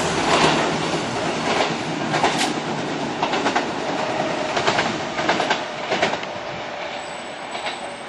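Kintetsu electric commuter train running through the station at speed, its wheels clacking over rail joints in irregular clusters while the running noise gradually fades.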